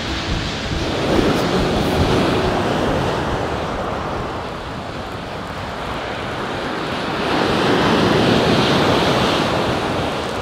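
Rough surf breaking and washing up a steep shingle beach, a steady wash of sea noise that eases in the middle and swells loudest about three-quarters of the way through.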